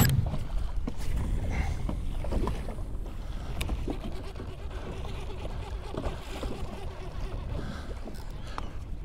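Wind rumbling on the microphone over water slapping and splashing against a kayak's hull as it moves through choppy sea.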